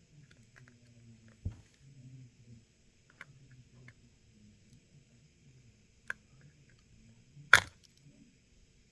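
Small metal tweezers ticking and scraping against a smartphone's internal parts while cutting glue from around the front camera. There are a few faint ticks, a duller knock about a second and a half in, and one sharp click about seven and a half seconds in.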